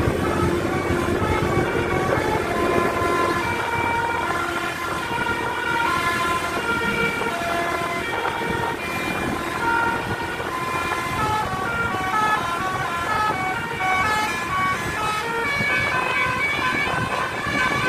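A bus's multi-tone musical horn ("telolet") playing a quick melody of stepped notes, over the rumble of the bus's engine.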